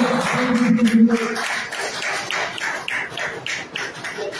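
Audience clapping in a steady rhythm, about four claps a second. Over the first second and a half a voice holds one long cheering note.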